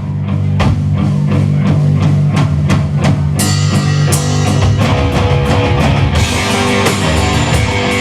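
Loud rock music with electric guitar and a drum kit keeping a steady beat; the band comes in fuller, with crashing cymbals, about three and a half seconds in.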